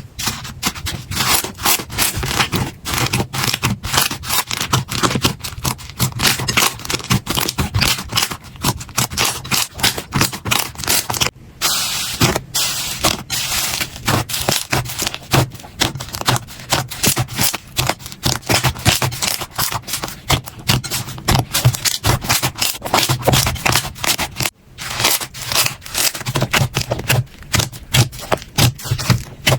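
Slime being squeezed, poked and stretched by hand, a rapid stream of sticky clicks, pops and crackles, with brief breaks twice.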